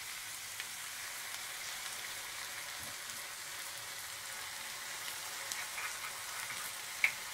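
Noodles frying in a nonstick pan on a gas stove: a steady, even sizzle with faint crackles, and one small click near the end.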